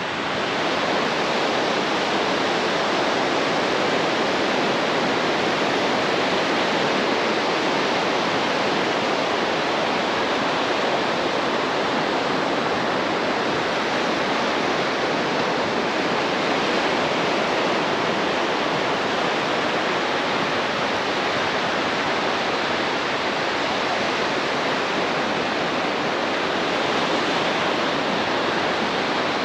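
Surf breaking on a beach: a steady rushing noise with no separate wave crashes standing out.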